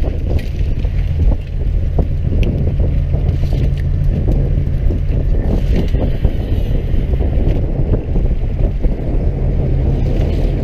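Fishing boat's engine running steadily, with wind on the microphone and scattered knocks and rattles from wire fish traps being handled on deck.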